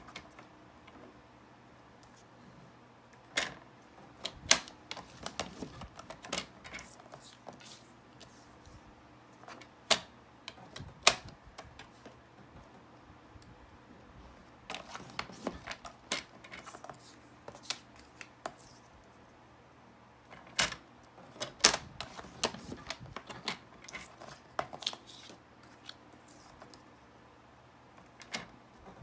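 Paper trimmer with a scoring blade in use on small cardstock pieces: scattered sharp clicks and taps as each card is set against the trimmer and the scoring carriage is slid along its rail, with short quiet gaps between pieces.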